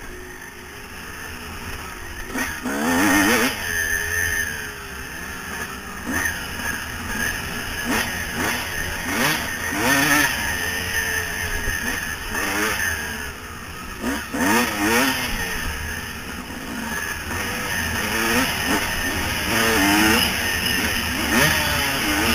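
2000 Yamaha YZ250 two-stroke dirt bike engine revving up and down over and over as the rider works the throttle and gears, over a constant rush of wind on the microphone.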